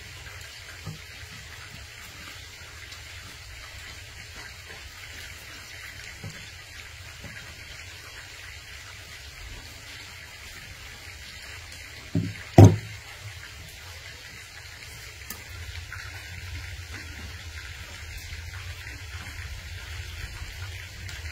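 Two short knocks about half a second apart, the second louder, over a steady low hum.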